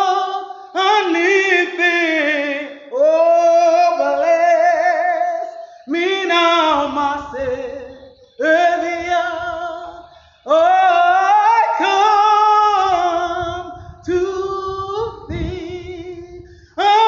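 A woman singing a slow hymn in long held notes with vibrato, one phrase every two or three seconds with a short breath between.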